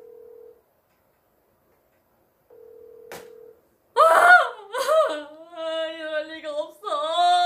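Phone ringback tone over a phone's loudspeaker: two steady one-second tones with about two seconds of silence between, the call ringing unanswered. From about four seconds in, a woman's loud, drawn-out wailing voice ("아, 이럴 리가 없어").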